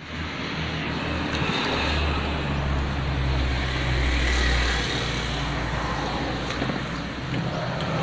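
Steady background noise like road traffic, with a low engine rumble that comes in about a second and a half in and stops suddenly about five seconds in.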